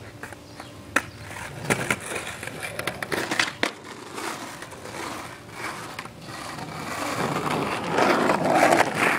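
Skateboard wheels rolling over rough asphalt, punctuated by several sharp clicks. The rolling grows louder toward the end as the board comes close.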